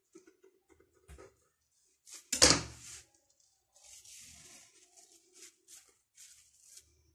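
A knife set down on a granite countertop with one sharp clack about two and a half seconds in, then cling film rustling and crinkling in short bursts as the dough is peeled off it and rolled up.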